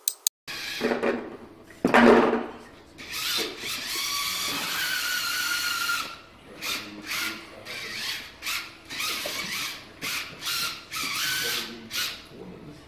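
Electric gear motors of a small robot built from the REV Starter Kit whining as it drives and manoeuvres on the field, in a series of short bursts with one longer, steady, slightly rising whine lasting a few seconds in the middle.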